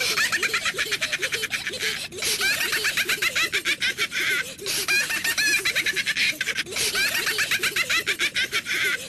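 High-pitched, rapid giggling chatter in the style of the Zoozoo characters' sped-up voices: a fast run of short squeaky notes, about ten a second, broken by short pauses about two, four and a half and six and a half seconds in.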